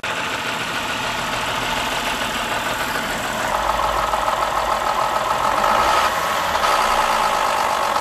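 2011 BMW 528i's N52 inline-six idling rough and loud, with a clattering sound like a diesel truck. The cause was failing VANOS units coming apart, with broken-off bolts in the oil pan. A stronger, higher sound joins the running about halfway through.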